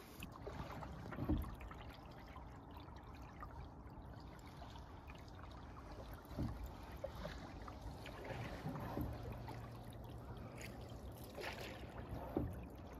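Faint canoe paddling: water trickling and swishing around the paddles and hull, with a few soft low thumps.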